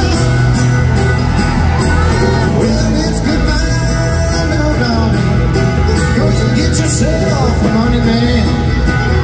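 A bluegrass band playing live and amplified in a large arena: acoustic guitar, banjo, mandolin, fiddle and upright bass, with sliding melodic lines over a steady bass.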